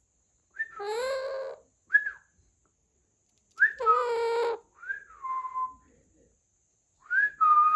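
Baby Alexandrine parakeet calling: two harsh, raspy calls about a second long, with short whistled notes in between and after that rise and then fall or level off.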